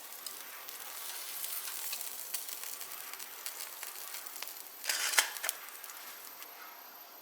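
Food sizzling and crackling on a small stainless-steel barbecue grill, with a brief louder hiss about five seconds in, then dying down.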